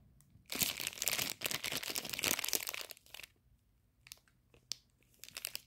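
Thin plastic bag crinkling and crackling in the hands, dense for about two and a half seconds, then a few scattered crackles.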